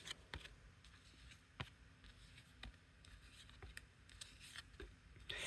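Near silence with faint, scattered light clicks of trading cards being handled and sorted by hand, a few more of them near the end.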